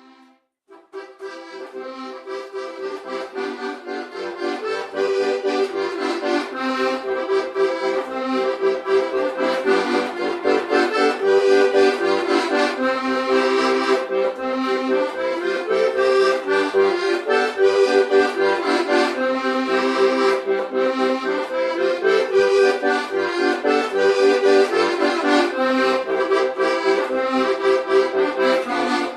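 Accordion playing a lively traditional tune, with a held bass-chord drone under the melody and no singing. It starts about a second in and gets fuller and louder about five seconds in.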